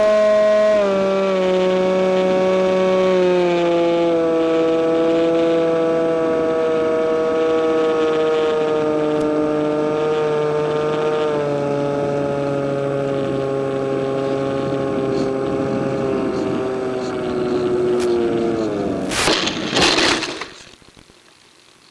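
Hawk Sky electric glider's motor and propeller whining, the pitch stepping down several times as the throttle is cut back on the landing approach. About nineteen seconds in, a loud rough rush of noise as the plane runs into dry weeds, and the motor stops.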